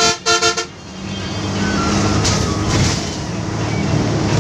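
Bus horn giving two short toots in quick succession, then the bus's engine and road noise running steadily in the cab.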